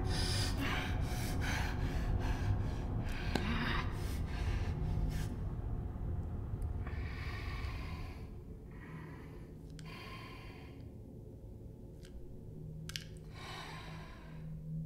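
A woman's heavy, ragged breathing and gasps, fast at first, then slower and quieter after about eight seconds, over a low steady hum.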